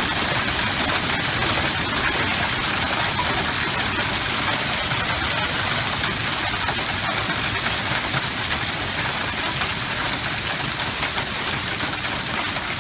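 Heavy hail pelting a pickup truck: a dense, steady clatter of countless small impacts.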